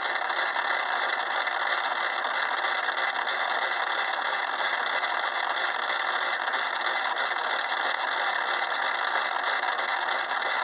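Craftsman 6-inch metal lathe and its cross-slide power-feed motor running steadily while a 3/8-inch end mill faces a steel block: an even, continuous mechanical whir with cutting noise, a slow facing pass in progress.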